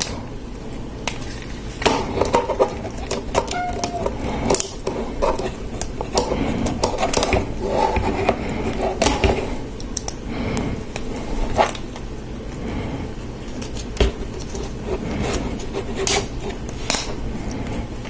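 Lego Technic plastic parts being handled and pressed back together, giving scattered light clicks and knocks at irregular intervals.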